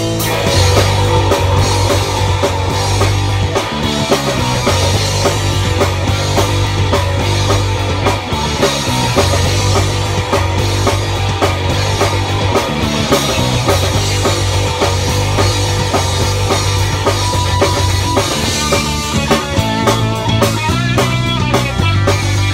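Instrumental rock music with a full drum kit, electric guitar and a steady bass line.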